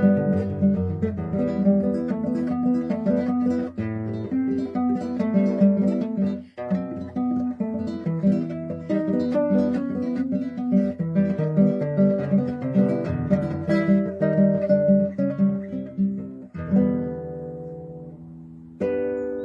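Background music: acoustic guitar, plucked and strummed, ending on chords that ring out and fade.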